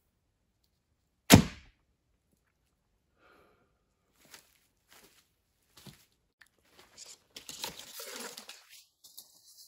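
Traditional recurve bow loosed from full draw: one sharp, loud snap of the string with the arrow striking the target, about a second in. Soft clicks and rustling follow, thickening near the end as the archer moves and handles arrows.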